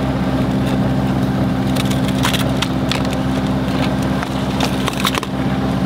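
Sailboat's auxiliary engine running steadily under way, a low even hum, with a few sharp clicks and knocks about two seconds in and again near five seconds.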